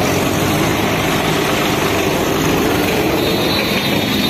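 Mahindra 595 Turbo tractor's diesel engine running steadily, a continuous low drone. A faint high whine joins near the end.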